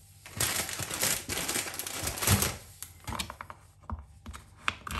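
Plastic sweet packet crinkling as it is rummaged through for jelly babies, followed by a run of light clicks and taps.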